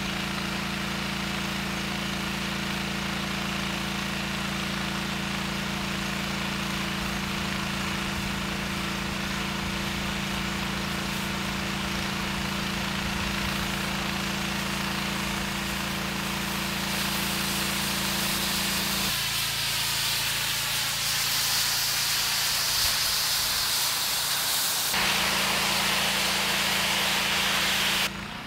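Pressure washer engine running steadily under the hiss of a high-pressure water jet blasting a concrete sidewalk edge. About two-thirds of the way in, the engine's tone shifts and the spray hiss grows louder and brighter.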